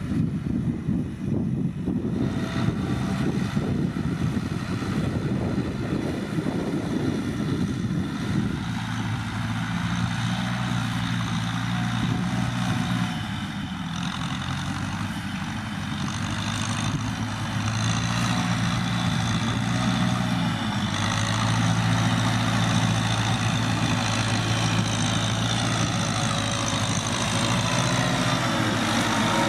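Kubota M6040SU tractor's diesel engine running steadily under rough wind noise for the first several seconds, then a clear steady engine hum.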